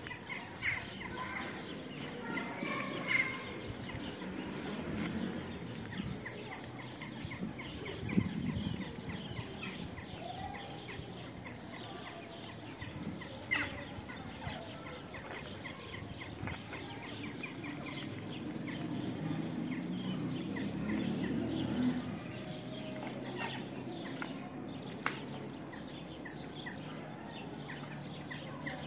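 Small birds chirping on and off over a steady outdoor background, with a few sharp clicks.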